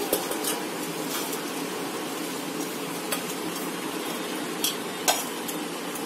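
Green chillies rustling as handfuls are moved from a steel bowl into a stainless steel mixer-grinder jar, with a few sharp clicks of the metal.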